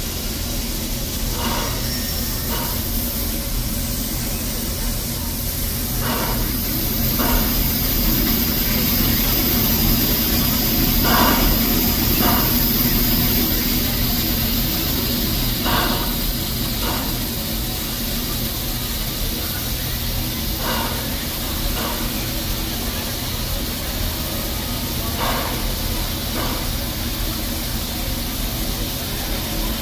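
The Walter E. Disney narrow-gauge steam locomotive standing with steam up: a steady hiss of steam over a low hum, with pairs of short bursts about a second apart repeating every four to five seconds.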